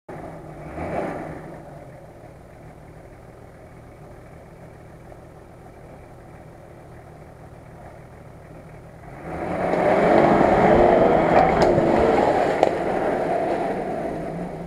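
An off-road 4x4's engine running low and steady, then revved hard about nine seconds in, its pitch rising and falling under load before easing off near the end.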